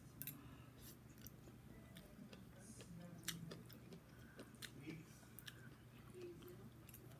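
Faint eating sounds: chewing, with scattered sharp clicks of a plastic utensil against the food container, the loudest about three seconds in.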